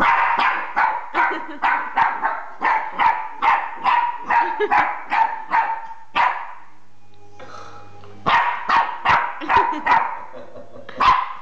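Jack Russell terrier puppy barking repeatedly at an unfamiliar new toy, sharp barks about three a second. The barking breaks off for under two seconds a little past the middle, then starts again.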